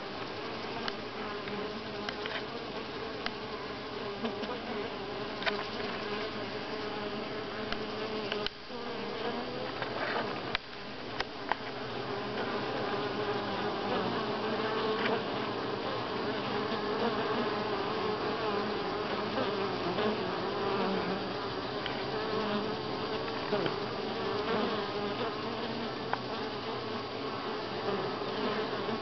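Honey bees buzzing as they fly around the entrance of a hive: a dense, steady hum that grows a little louder after about twelve seconds.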